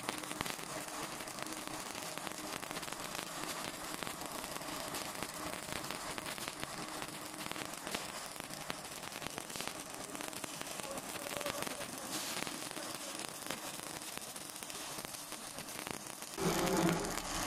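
Stick (shielded metal arc) welding with E6013 electrodes: the arc crackles and sputters steadily as the bead is laid along a steel bracket. About a second before the end a louder, deeper noise cuts in.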